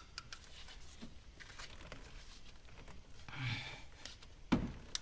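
Light clicks and a short scrape from a long-handled socket wrench working the cylinder head bolts of an LS V8, as it turns a bolt a further 90 degrees and is moved to the next one. A sharper metallic knock near the end is the loudest sound.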